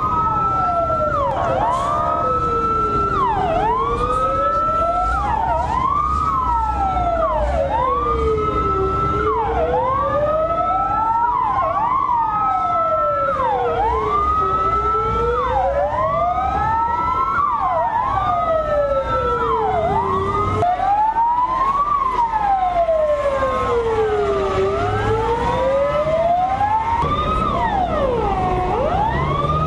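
Two electronic fire-truck sirens, an SGU-60 and an Elina Smerch 120, sounding together. One wails slowly up and down about once every five to six seconds. The other climbs quickly, holds and drops sharply about every two seconds. Truck engines rumble underneath.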